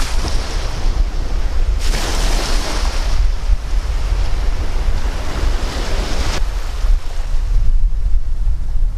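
Sea surf washing in at the shoreline, with wind buffeting the microphone in a steady low rumble. A wave's hiss swells about two seconds in and dies down about four seconds later.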